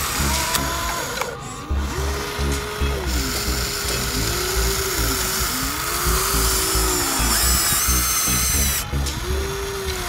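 Small electric motors of a Huina remote-control toy excavator whining, rising and falling in pitch again and again as the arm and bucket move. Background music with a steady beat plays underneath.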